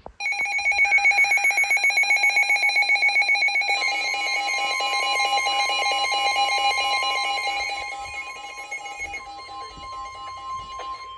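NOAA Weather Radio alert for a severe thunderstorm warning. A loud, rapidly pulsing electronic alarm comes first. About four seconds in, the steady 1050 Hz warning tone joins it and carries on alone after the pulsing fades.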